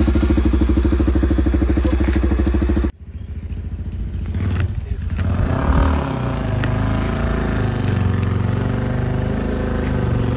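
Dirt bike engine idling close by with a steady, even beat, which cuts off abruptly about three seconds in. It is followed by a fainter motorcycle being ridden on a dirt track, its engine note rising and falling and gradually getting louder.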